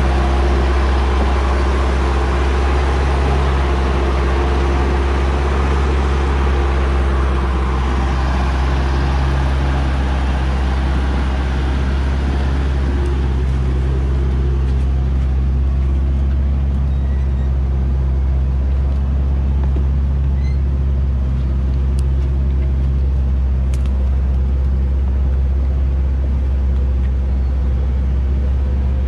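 Hoa Mai log truck's diesel engine running at low, steady revs as the loaded truck creeps along a muddy mountain track. A hissing rush over the engine note is stronger for the first several seconds, then fades.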